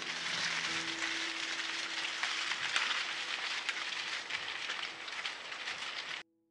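Wild boars trampling and rooting through dry leaf litter and dry grass close to a trail camera: a dense, steady crackling and rustling that cuts off suddenly near the end.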